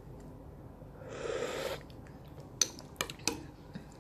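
A short slurp of spicy noodle broth sipped from a metal spoon, about a second in. It is followed by a few light clicks of the spoon against the bowl.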